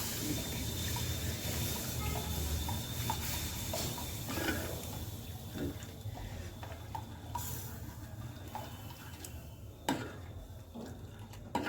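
Spoon stirring milk into ghee-roasted gram flour (besan) in a kadhai: liquid sloshing and scraping, with scattered light clinks of the spoon on the pan and a sharper knock near the end.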